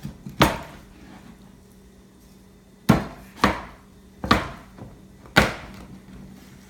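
Scimitar butcher knife chopping through a whole chicken: about five sharp, irregular chops, two close together near the start, then three more spaced about a second apart.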